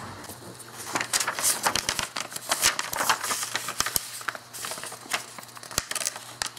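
Sheet of paper rustling and crinkling as it is handled, with irregular crackles and sharp light clicks starting about a second in.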